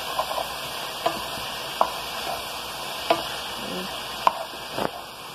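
Ground pork sausage sizzling as it browns in a frying pan, with a cooking utensil knocking against the pan a handful of times as the meat is stirred and broken up.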